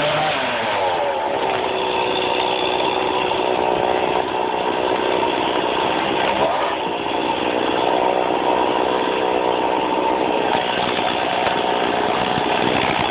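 Stihl MS 460 Magnum two-stroke chainsaw running at high revs while bucking logs to firewood length. The engine note dips and climbs back twice, near the start and about six and a half seconds in.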